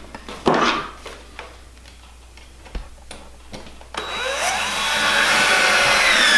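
Red cordless drill driving a screw into a willow stick: about four seconds in the motor starts with a whine that rises in pitch as it speeds up, then runs steadily for about two and a half seconds and stops suddenly. Before that, a few light knocks of the sticks being handled.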